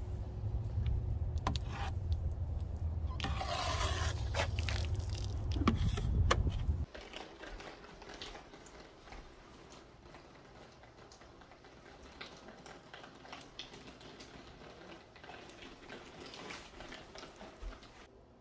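A loud low rumble with a short hiss about three and a half seconds in, cutting off suddenly about seven seconds in. Then a water-fed pole brush faintly scrubs and taps against the window glass, muffled by hearing it from inside the room.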